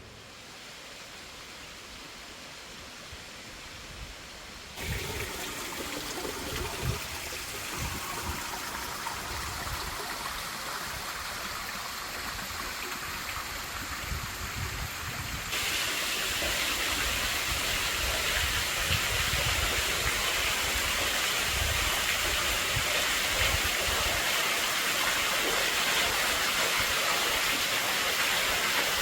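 Waterfall water rushing in a steady hiss, growing louder in two steps, about five seconds in and again about fifteen seconds in.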